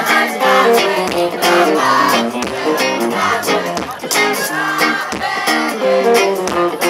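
Live band playing through a PA: a singer over electric guitar and drums.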